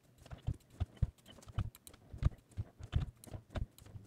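Computer keyboard and mouse clicking, sped up: quick, irregular clicks and taps, several a second.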